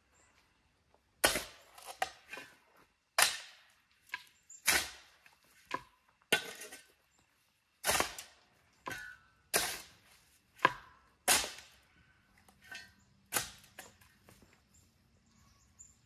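About a dozen sharp strikes of a long-handled tool driven into the ground at the foot of a log post, roughly one a second, each with a brief rattle of soil and stones.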